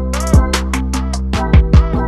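Background music with an electronic hip-hop beat: deep kick drums that drop in pitch, quick hi-hat ticks and sustained synth chords.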